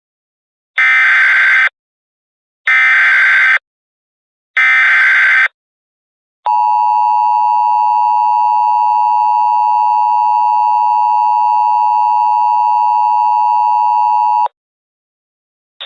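Emergency Alert System SAME header: three short bursts of warbling digital data, about a second each and a second apart. Then the EAS two-tone attention signal sounds, a steady pair of tones held for about eight seconds before it cuts off. Together they mark the start of an emergency alert broadcast.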